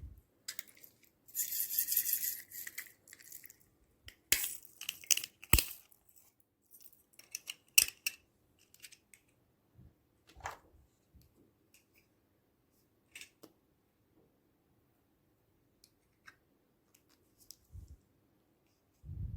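Slime being worked by hand: scattered sticky clicks and pops, with a crackling rustle about a second in and a few sharp snaps a few seconds later, then only occasional faint clicks.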